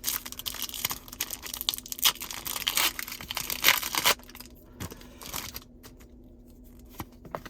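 Foil wrapper of a Pokémon booster pack being torn open and crinkled for about four seconds, followed by a few fainter crinkles and clicks.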